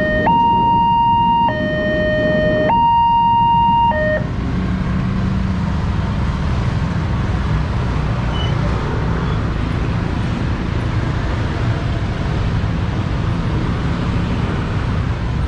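Railway level-crossing alarm in the Daop 8 Surabaya style, sounding a two-tone chime that alternates between a higher and a lower pitch about every 1.2 seconds. It cuts off about 4 seconds in, as the crossing clears. After that there is a steady low rumble of motorbike traffic starting across the tracks.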